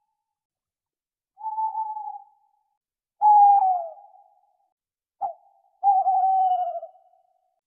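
Owl calling: a series of pitched hoots, each about a second long, some held level and some sliding down in pitch. A short sharp note comes just before the last and longest call.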